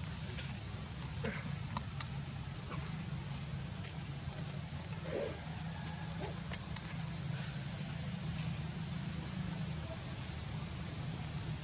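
Steady outdoor ambience of insects buzzing, with a constant high whine over a low rumble. A few faint clicks and a short low call come about five seconds in.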